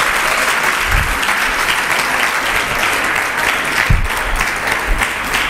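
Congregation applauding, a steady clapping with two dull low thumps about one and four seconds in.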